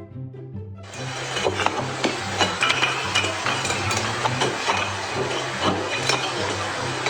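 Background music with a steady bass line. From about a second in, a loud hissing noise with many small clinks and knocks joins it.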